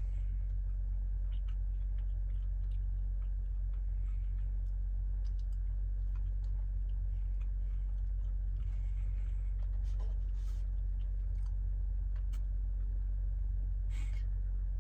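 Soft chewing and handling of a bread-roll sandwich, with a few small taps and rustles, over a steady low rumble.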